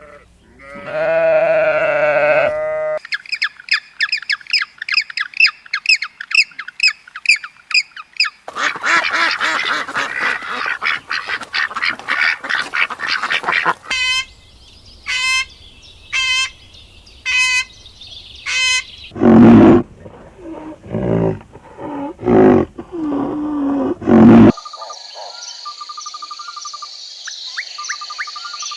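A run of different animal calls, one after another: a pitched bleat-like call, then several seconds of rapid high bird chirping, a run of repeated falling chirps about once a second, a few loud lower calls, and finally a steady high buzz.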